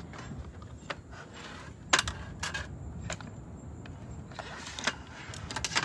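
Clicks, knocks and light clatter of a portable butane camp stove being unlatched and lifted out of its hard plastic carry case on a folding camp table, with a sharp knock about two seconds in.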